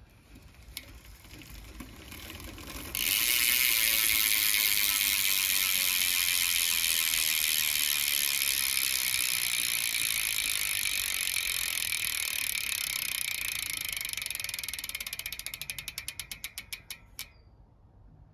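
Cinema VX2 cassette hub freewheeling on a BMX rear wheel: the pawls click so fast they make a steady ratcheting buzz, which starts suddenly about three seconds in. As the wheel spins down the clicking slows into separate clicks and stops near the end.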